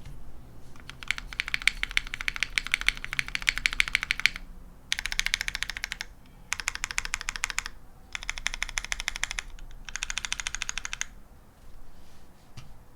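Typing on a Matrix Falcon mechanical keyboard with lubed and filmed SP Star Meteor V3 switches with Cherry top housings, a POM half plate and GMK Thinkcaps keycaps. The keystrokes come in runs of quick clicks with short pauses between them, thinning to a few single keystrokes near the end.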